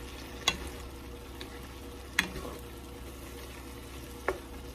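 Pork and vegetables sizzling in a metal frying pan as a spatula stirs them, with three sharp clacks of the spatula against the pan, about half a second, two seconds and four seconds in.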